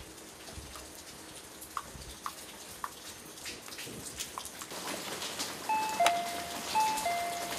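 Door intercom doorbell chiming a two-note ding-dong, a higher note then a lower one, rung twice about a second apart after the outdoor call button is pressed.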